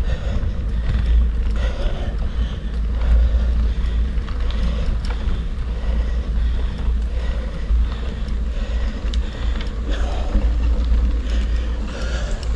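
Wind buffeting the microphone during a bicycle ride, a steady low rumble, with faint clicks and rattles from the bike over the road.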